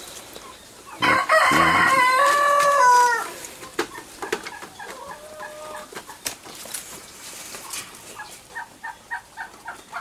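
A rooster crowing: one loud crow about a second in, lasting about two seconds and falling in pitch at its end. A fainter call follows around five seconds in, then a quick run of clucks near the end.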